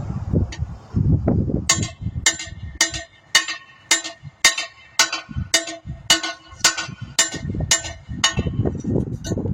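A big hammer striking the bent edge of a car wheel rim about thirteen times in an even rhythm, roughly two blows a second, each blow ringing metallically: the rim lip being beaten straight.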